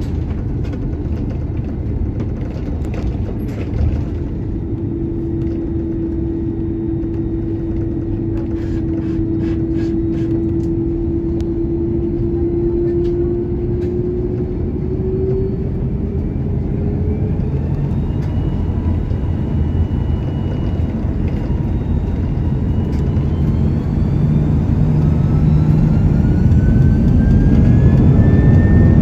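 Airbus A330-300 jet engines heard from the cabin beside the wing: a steady low rumble at taxi power, with a few light clicks and rattles early on. About halfway through, the engines spool up for the takeoff roll: whining tones climb in pitch and the rumble grows louder toward the end.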